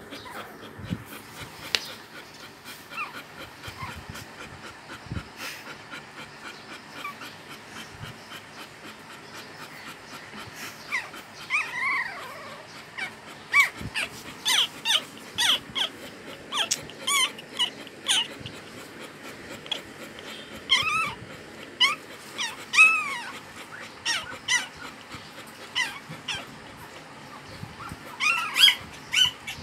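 Newborn puppies squeaking and whimpering in short, high-pitched cries. The cries are faint and scattered at first, then louder and coming one after another through the second half.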